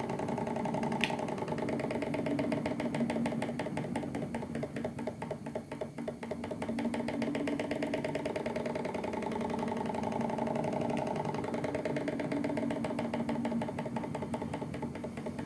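Small gas-heated Stirling engine generator running with a rapid, even mechanical clatter, working against the load of charging a capacitor that is being connected on and off to keep the engine from stalling. A light click about a second in, and the sound dips briefly around five seconds in before steadying again.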